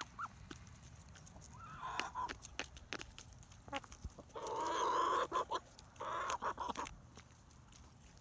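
Pullets pecking wet gruel from a hand-held tub, their beaks clicking sharply and often against it. One gives a short cluck about two seconds in, then a loud harsh squawk near the middle, repeated about a second later.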